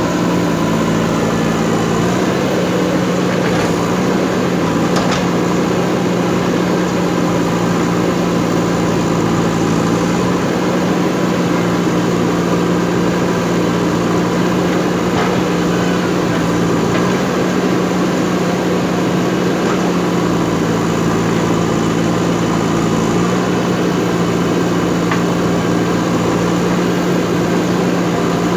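JCB backhoe loader's diesel engine running steadily, its pitch stepping slightly up and down a few times, with a few faint clicks.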